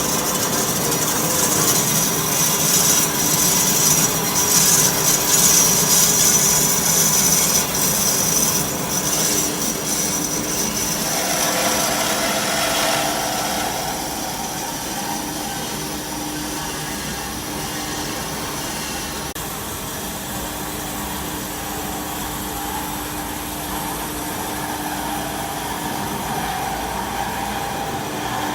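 Automatic horizontal band saw cutting metal: the blade runs steadily through the stock with a constant hum and a high hiss. The hiss is strongest for the first several seconds and eases after about ten seconds, leaving a quieter, steady cutting sound.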